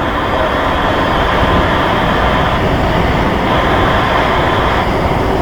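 Steady, loud jet-engine roar from a large airliner near the runway, with no distinct changes or impacts.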